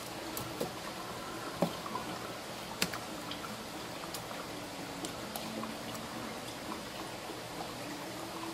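A kitchen knife slicing shark fillets on a plastic cutting board. There are a few sharp clicks of the blade on the board, the loudest about one and a half and three seconds in, over a steady watery hiss.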